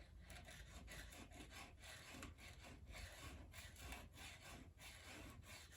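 A wood chisel being honed: faint, quick back-and-forth rubbing strokes, about three a second.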